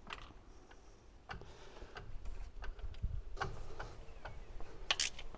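Light scattered clicks and soft knocks of hands and tools fitting a new spark plug and its lead, with a sharper click near the end.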